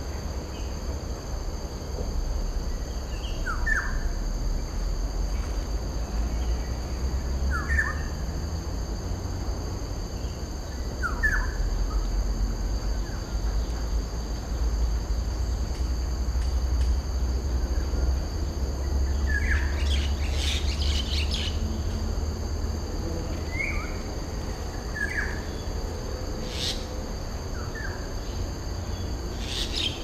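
A bird giving short, falling call notes, one every few seconds, with a quick flurry of sharp sounds about twenty seconds in.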